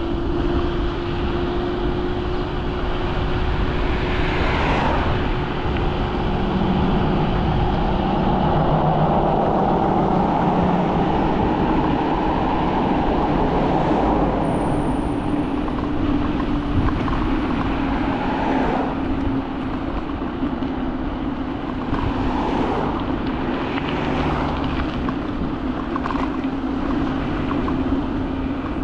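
Teverun Fighter Supreme Ultra electric scooter riding fast in speed mode 3: a steady motor whine, slowly falling in pitch, over heavy wind and road noise.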